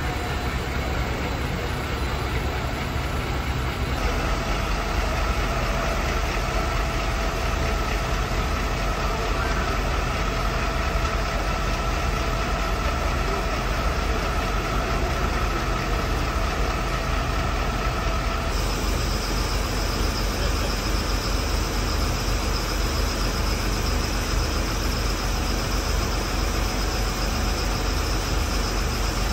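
Fire trucks' diesel engines idling, a steady rumble, with a steady whine over it through the middle stretch. The background changes abruptly twice.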